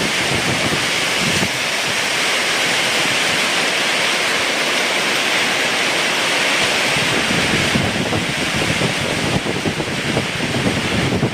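Heavy rain with strong wind: a steady hiss of rain, with gusts buffeting the microphone that grow rougher and more uneven over the last few seconds.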